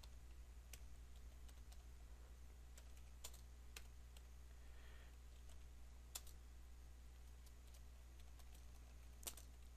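Faint, irregular keystrokes on a computer keyboard, with pauses between them, over a steady low hum.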